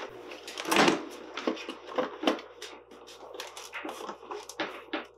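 Handling noise of a receiver unit being shifted on hook-and-loop (Velcro) strips inside a hard plastic case: a short rasp of Velcro peeling about a second in, then light clicks, knocks and rubbing.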